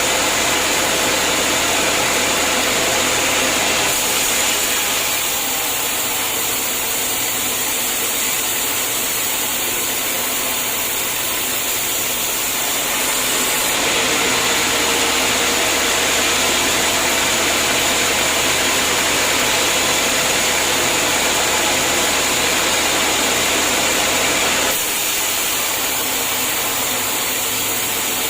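Homemade sawmill running steadily while sawing a hard acacia log, its machine noise stepping down and back up a few times as the cut goes on.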